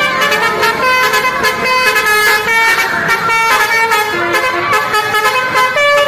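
Indonesian tour bus's multi-note basuri telolet horn playing a fast tune, short notes jumping from pitch to pitch without a break.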